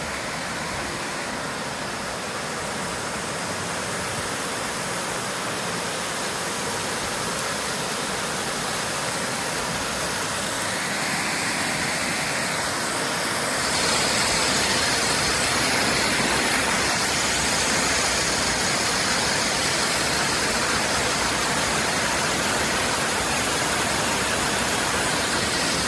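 Steady rush of falling water from a waterfall, growing a little louder about halfway through.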